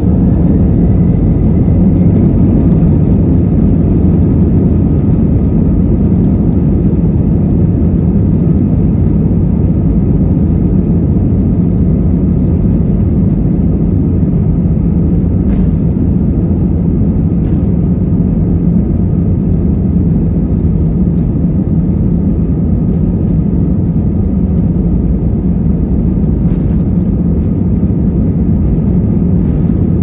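Airliner cabin noise by a window seat over the wing: a steady rumble of the jet engines and the aircraft rolling along the runway. A faint whine rises in the first couple of seconds.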